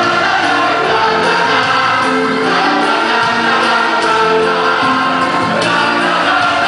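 A chorus of voices singing a stage-musical number together with instrumental accompaniment, steady and full throughout.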